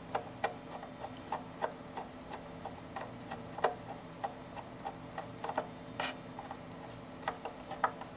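A screwdriver driving a screw into the cooling-fan mount: irregular light clicks, two or three a second, with one louder click about six seconds in, over a faint steady hum.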